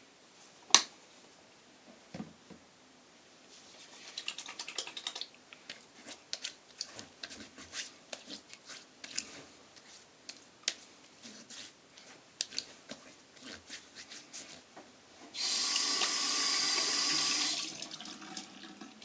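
A sink tap running for about two seconds near the end. Before it come a single sharp click and a long run of small wet clicks and pats.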